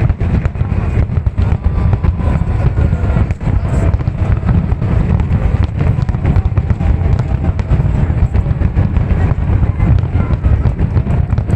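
Fireworks going off in a dense, continuous barrage of booms and crackles.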